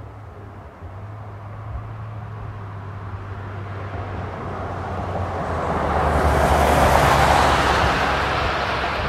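A vehicle passing by: its noise swells over several seconds, peaks about seven seconds in, then begins to fade. A steady low hum runs underneath.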